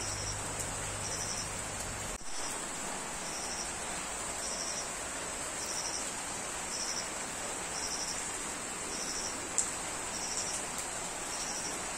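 Steady rain falling on garden foliage and waterlogged ground. An insect trills in short high pulses about once a second over a steady high drone.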